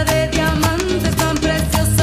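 Latin tropical dance-band music from a recorded song: keyboards with congas and other percussion keeping a steady beat.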